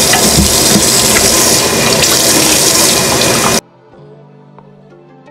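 Bathroom sink tap running hard and steadily, cutting off suddenly about three and a half seconds in. Soft background music with held notes follows.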